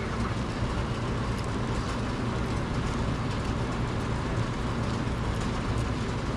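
Torch flame burning steadily with a continuous hiss, heating a small steel part red so it can be bent.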